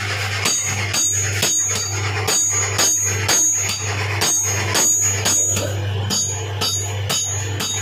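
Background music with a steady beat of about two strokes a second and bright, bell-like jingles, over a steady low hum.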